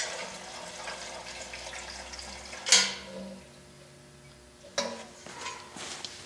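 Gasoline pouring from a metal safety can through its built-in funnel into a small engine's fuel tank, a steady trickle for about the first half. Then two sharp knocks about two seconds apart, followed by a few small clicks.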